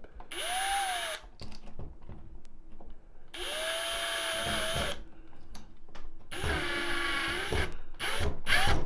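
Electric drill-driver running in five short bursts, tightening screws. Each burst is a whine that spins up and winds down; in the third burst the pitch drops lower as the motor slows under load.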